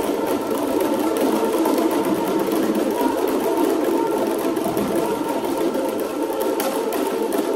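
Live experimental group piece: a dense, fast, unbroken rattling texture with a few faint held tones underneath, from a boys' choir and percussion playing together.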